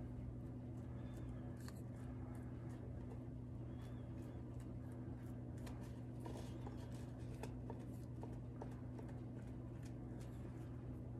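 Irregular light taps and clicks of a paintbrush working Mod Podge glue over a napkin-covered styrofoam disc, busiest in the middle, over a steady low hum.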